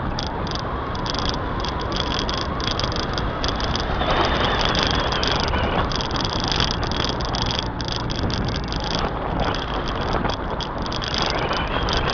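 Wind and road noise on a small action camera held at the window of a moving car: a steady, loud rumble and hiss with no separate events.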